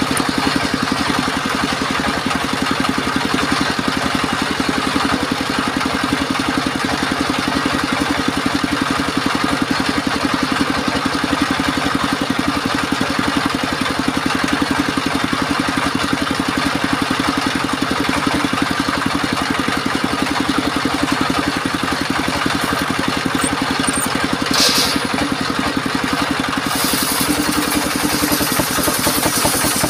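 The engine of a portable circular sawmill runs steadily with an even, rapid pulse. Near the end a brighter hissing noise joins it.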